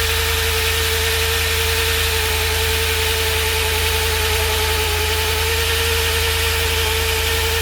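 Core drill running steadily as its bit bores through concrete: a constant low hum with a steady whine over grinding noise.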